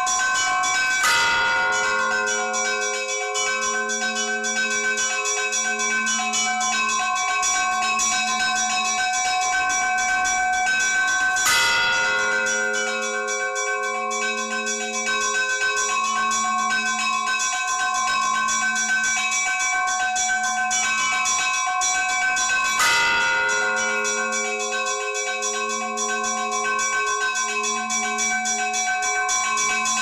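Orthodox church bells ringing: small bells chime rapidly and continuously while a large bell strikes heavily three times, about every eleven seconds, its low hum pulsing in between.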